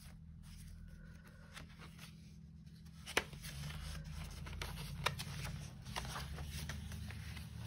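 Paper and card pages of a handmade art journal being turned and handled: soft rustling with two sharp taps, about three and five seconds in, over a low steady hum.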